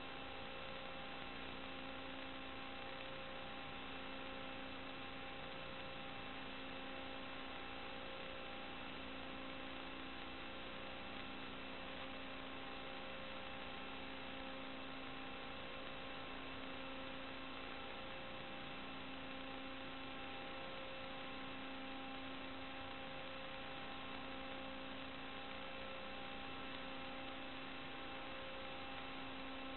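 Steady electrical hum and hiss with several fixed whining tones, one low tone swelling and fading about every two seconds.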